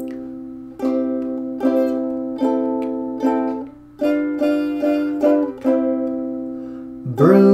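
Strummed chords on an acoustic string instrument, roughly one strum a second, each ringing and fading before the next.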